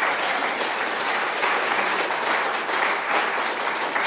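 Audience applauding: many people clapping at a steady strength.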